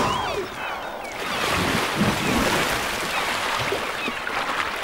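Seawater splashing and rushing as a humpback whale lunges through the surface with its mouth open, with gulls giving short high calls over it throughout.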